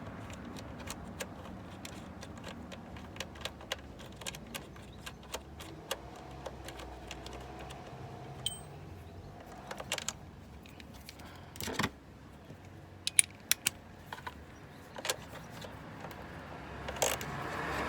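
Small metallic clicks and clinks at irregular intervals, a few louder ones around the middle: hand tools and sockets working the nuts on a car alternator.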